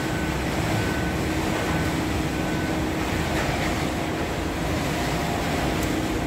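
Waste-shredding and conveyor machinery running with a steady hum and the rush of fine shredded waste pouring off the conveyor chute onto a pile. A short high beep repeats about once a second through the first half.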